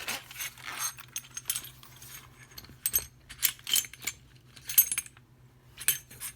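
Small steel lock parts and tools clicking and clinking in separate sharp taps, a handful spread over several seconds with a brief metallic ring after some: a pin-tumbler lock being handled and taken apart with a follower.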